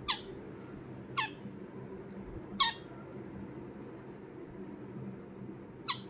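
Young pineapple green-cheeked conure giving four short, sharp chirps, each dropping quickly in pitch, spaced one to three seconds apart, over a faint steady low hum.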